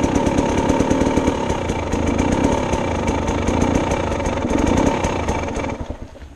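Dirt bike engine idling steadily, then cut off about six seconds in.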